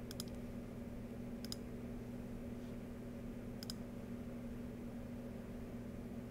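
Three quiet clicks of a computer mouse button, each a quick press-and-release double tick, spaced unevenly over a few seconds, with a faint steady low hum underneath.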